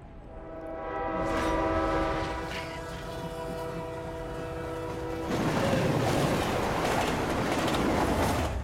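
Train horn sounding one long, steady chord for about five seconds, followed by the louder rushing noise of the train running, which cuts off sharply at the end.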